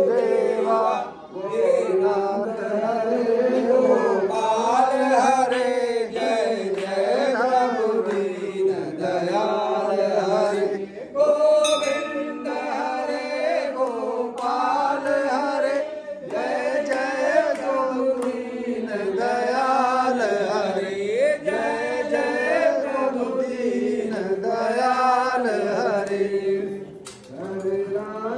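A group of voices singing a Hindu devotional chant together, continuing throughout.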